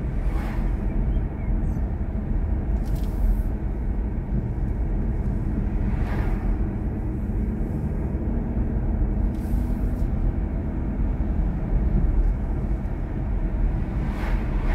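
Steady road and tyre rumble inside the cabin of a BMW i4 M50 electric car driving at road speed, with no engine note. Oncoming cars whoosh past about five times.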